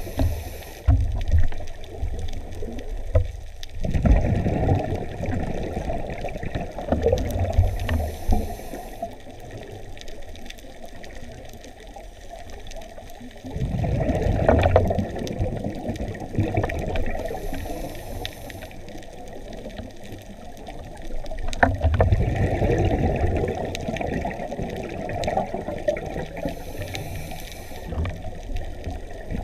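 Underwater recording of a scuba diver's breathing through a regulator: long bubbling, gurgling exhalations about every nine seconds, each paired with a short high hiss of inhalation, with faint clicks between.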